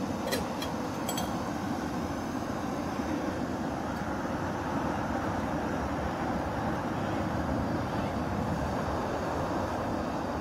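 MSR Pocket Rocket canister stove burner running with a steady hiss under a pot of water being heated to boil. A few light metallic clicks come in the first second as the pot is handled.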